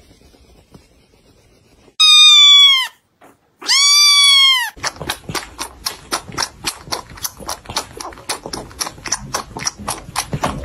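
Two loud, high cat meows, each rising and then falling in pitch. Then a kitten suckling from a milk bottle's nipple: a quick, even run of small wet sucking clicks, about three or four a second.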